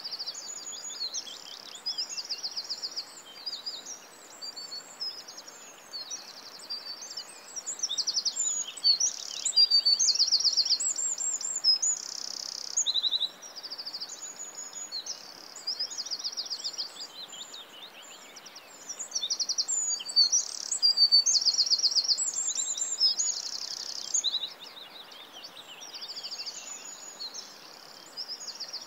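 Birds chirping and singing, with many high chirps and rapid trills following one another over a faint steady hiss.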